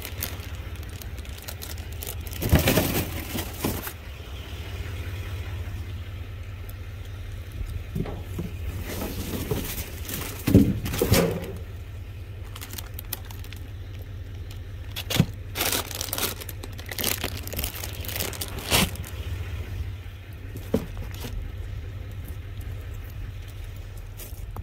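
Rummaging through dumpster rubbish: plastic bags crinkling and cardboard produce boxes scraping and being shifted, in irregular bursts. A steady low hum runs underneath.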